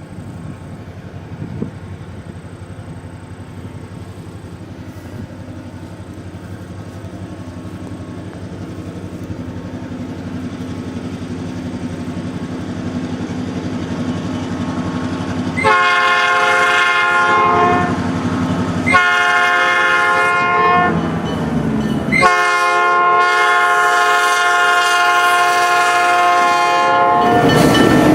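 MKT RS3M diesel locomotive drawing closer, its engine growing steadily louder, then sounding its multi-chime air horn in three blasts: two of about two seconds each, then one of about five seconds. The train rumbles past near the end.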